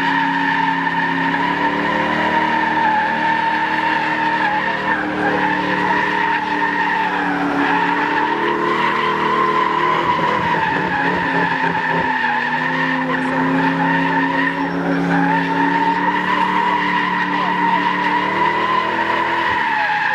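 Second-generation Cadillac CTS-V's supercharged V8 held at high revs while its rear tyres squeal steadily in a sideways slide. The engine note dips briefly about halfway through and again near the end, then recovers.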